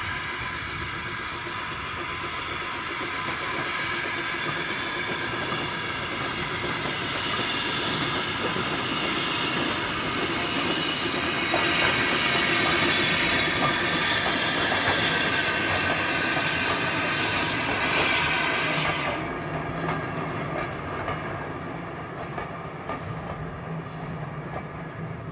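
Avonside 0-4-0 saddle tank steam locomotive hauling vintage coaches past, with a loud steam hiss that cuts off suddenly about 19 seconds in. The sound grows louder as the train comes closest, and the coach wheels click over the rail joints.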